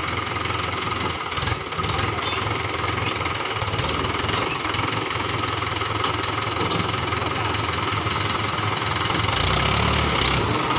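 Mahindra 575 DI tractor's four-cylinder diesel engine running steadily at idle, with a few light clicks. About nine seconds in the engine grows louder and heavier.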